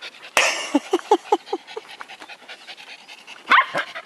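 Small white curly-coated dog panting rapidly at close range, with a sudden loud burst of noise about half a second in, then a run of about five short pitched huffs, and a louder pitched sound near the end.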